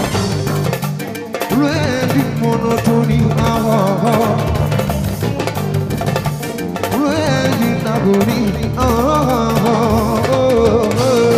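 Live mbalax band playing: a singer's melodic line over busy hand drums, with electric guitar and keyboard.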